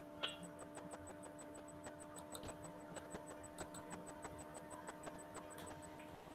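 Quiet room tone: a faint steady hum with a long string of soft, quick clicks, several a second.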